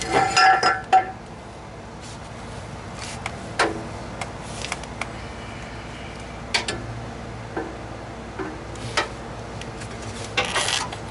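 Metal clanking and clinking as a new catalytic converter's steel pipe is handled and fitted up against the car's exhaust. It starts with a loud clatter that briefly rings, then single clinks and knocks follow every few seconds.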